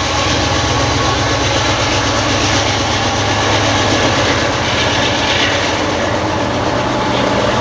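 Diesel locomotives of a Union Pacific coal train running: a loud, steady drone with a low engine hum underneath and rail noise.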